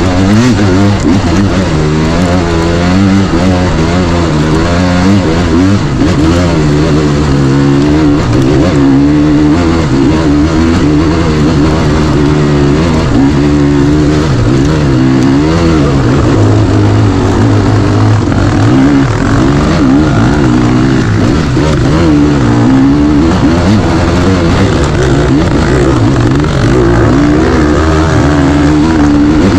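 Dirt bike engine, close and loud, revving up and down continuously with the throttle.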